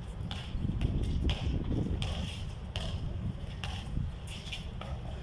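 Basketball bouncing and sneakers scuffing on an outdoor concrete court during play: a string of short sharp knocks, roughly one every half-second to second, over a steady low rumble.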